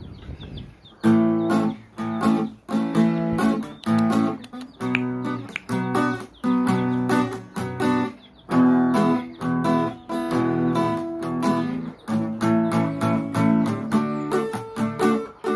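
Acoustic guitar strumming chords in a steady rhythm, starting about a second in.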